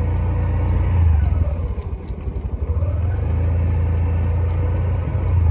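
Motorcycle engine running at low speed as it rides slowly toward the microphone, a steady low rumble that dips briefly about two seconds in.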